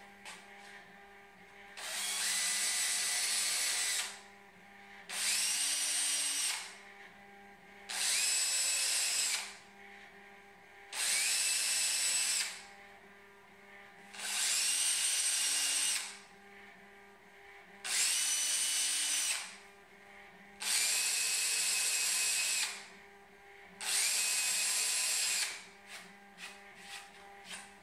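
Makita cordless drill pre-drilling pilot holes through a plywood panel: eight short runs of the motor, each whine rising as it spins up and then holding steady for one to two seconds, with pauses between. A few light clicks near the end.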